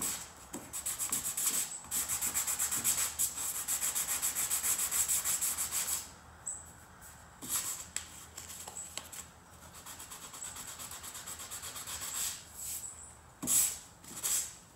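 Hand sanding with sandpaper on a foam sanding block, scuffing the painted steel frame of a Toyota Land Cruiser tailgate so the primer will stick. Quick, steady back-and-forth strokes for about six seconds, then slower, lighter strokes, with one louder pass near the end.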